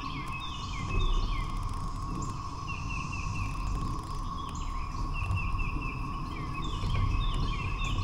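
A massed cicada chorus droning steadily at one pitch, with a songbird singing repeated phrases of short falling notes over it.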